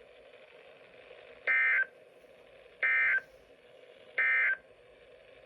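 NOAA Weather Radio SAME end-of-message data bursts: three short, identical buzzy digital tone bursts a little over a second apart, signalling the end of the warning broadcast, heard over faint receiver hiss.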